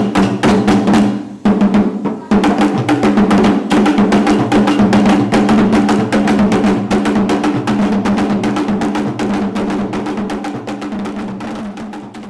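Fast, dense drumming with many strokes a second over a steady low tone, fading out near the end.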